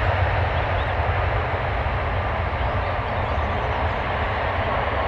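Airbus A330 jetliner's Rolls-Royce Trent engines running with a steady rumbling roar as the aircraft rolls out on the runway after landing, fading slightly as it moves away.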